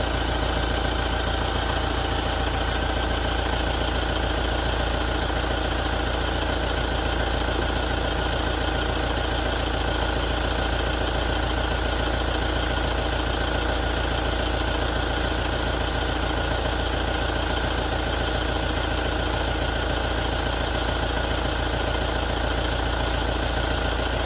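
2017 Toyota diesel engine idling steadily with a knocking and rattling noise, which the owner reports began after a major service.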